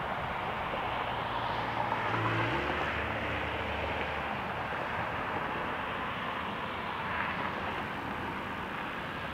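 Embraer ERJ-145 regional jet's two rear-mounted Rolls-Royce AE 3007 turbofans at approach power as it passes low on final with gear down: a steady rushing jet drone, with a low hum that drops in pitch about two and a half seconds in.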